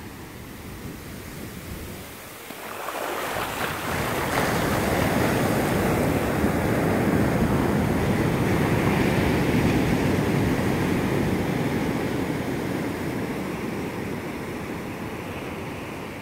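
Ocean surf on a sandy shore: a wave breaks about three seconds in, and its wash rushes up the sand, then slowly fades.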